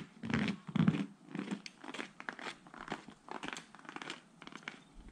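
Footsteps crunching in packed snow on a snow-covered boardwalk at an even walking pace, loudest about the first second and softer after that.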